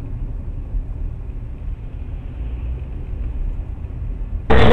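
Steady low road and engine rumble of a car heard from inside the cabin through a dashcam's microphone. About four and a half seconds in, a sudden loud burst of noise cuts in and holds.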